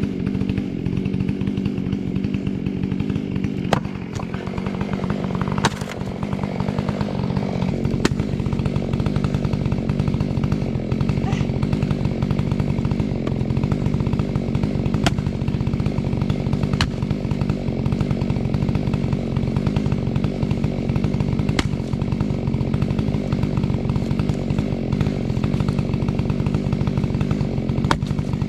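Stihl MS 661 C two-stroke chainsaw running steadily at a constant pitch, with a brief drop in level about four seconds in and a few sharp clicks over the engine.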